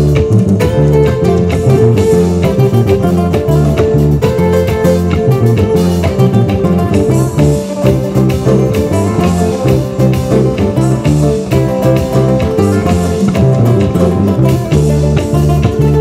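Live band music led by a nylon-string electro-acoustic guitar playing plucked melody lines over a second guitar and a strong, rhythmic bass line.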